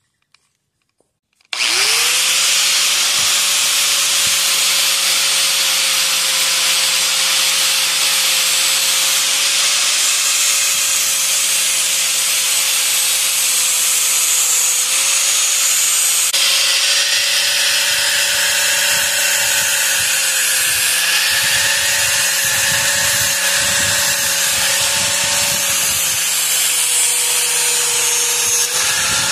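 An angle grinder with a flap disc starts up about a second and a half in, then runs steadily while grinding a new edge onto a dinged-up steel lawnmower blade. Under the loud grinding hiss, the motor holds a steady whine.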